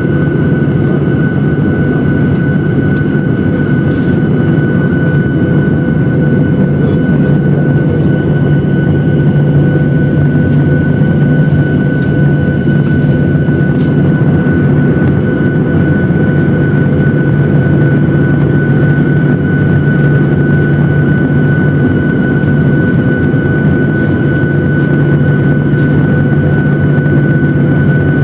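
Jet airliner's engines heard from inside the cabin while the plane is on the ground: a loud, steady drone with a constant high whine, holding the same pitch throughout.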